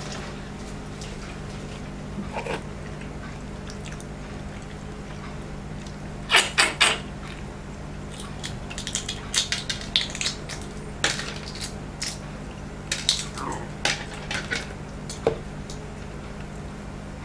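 A metal fork clinking and tapping against the table and the food, scattered sharp clicks with a quick run of three loud ones about six seconds in, over a steady low hum.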